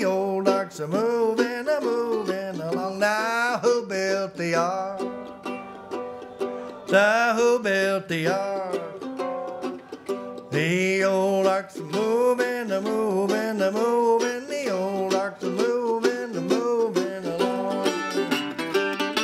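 An F-style mandolin played unaccompanied: a quick instrumental run of picked notes.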